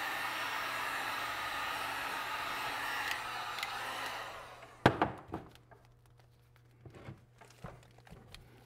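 Electric heat gun blowing steadily while shrinking PVC wrap onto a battery pack; it stops about four and a half seconds in. A sharp knock follows, then a few lighter knocks and handling sounds.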